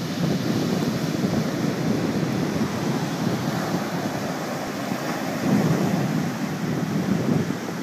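Ocean surf breaking and washing up the beach in a continuous roar of foam, with wind buffeting the microphone. The surf swells louder about five and a half seconds in and again near the end.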